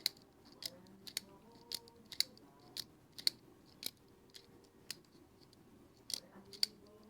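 A CJRB Kicker folding knife, a manual flipper with a recoil lock, being flipped open and snapped shut over and over. It gives a run of sharp metallic clicks, about two a second.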